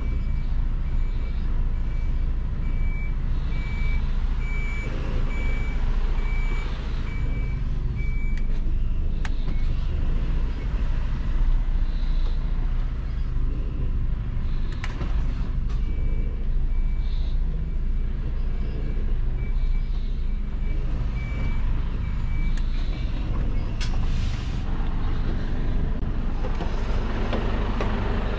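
Tractor-unit truck engine running while reversing, its reversing alarm beeping steadily over the low engine rumble. The beeping stops about 8 s in and starts again after about 16 s.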